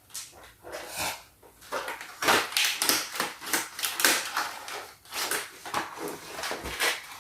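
A cardboard toy box and its plastic packaging being handled and emptied: irregular rustling, scraping and clicking in quick short strokes.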